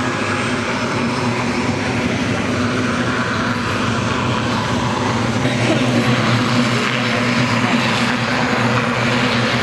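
RAF Short Tucano T1 trainer taxiing, its single Garrett turboprop engine and propeller running in a steady, even drone.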